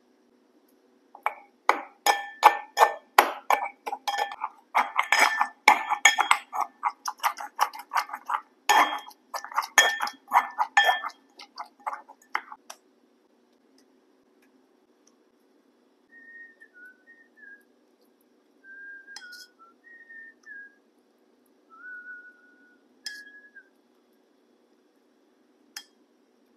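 Stainless steel pestle pounding in a stainless steel mortar: quick ringing metallic clinks, about three a second, which stop about halfway through. After them come only faint short squeaks and a few light clicks.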